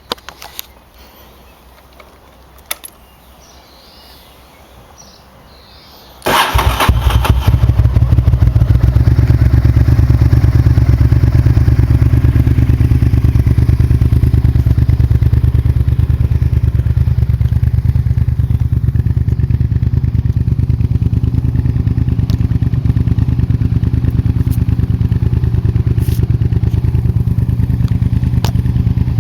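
Honda VTR1000F FireStorm's V-twin engine, after a few light clicks, is started about six seconds in and catches at once, then idles loudly and steadily through a Leo Vince exhaust with the dB killer removed.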